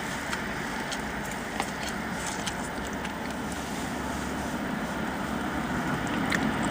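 Steady hum of an idling car heard from inside the cabin, with a few faint clicks and crinkles.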